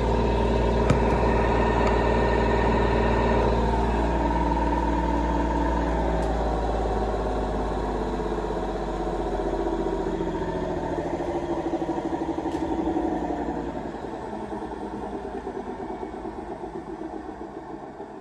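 AEG Lavamat 72850M front-loading washing machine winding down from its spin: the drum and motor hum and whine falls steadily in pitch as the drum slows, and the sound fades over the last few seconds. A single click comes about a second in.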